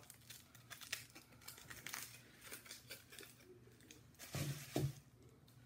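Foil gift wrapping crinkling and tearing as it is pulled off a small item by hand, with two brief low bumps about four and a half seconds in.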